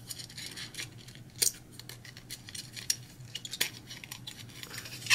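Light clicks and rustles of a 16mm film strip and its plastic spool being handled while film is threaded into a Bolex H-16 Reflex camera, with two sharper clicks about a second and a half in and about three and a half seconds in.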